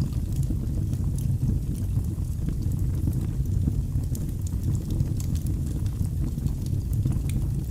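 Fire burning in a fireplace: scattered sharp crackles and pops over a steady low rumble of the flames.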